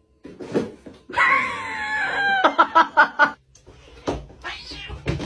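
A cat yowling: one long, drawn-out wail, then a quick string of about six short yowls.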